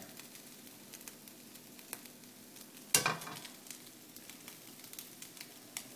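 Roasted red peppers and shredded turkey sizzling in olive oil in a frying pan, with a steady hiss and scattered small pops. A single sharp knock sounds about three seconds in.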